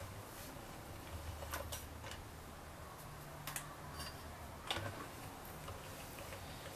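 Stainless-steel two-roller dough sheeter turning as a sheet of fresh lasagna dough is fed through it: a faint low hum in stretches, with a few light clicks.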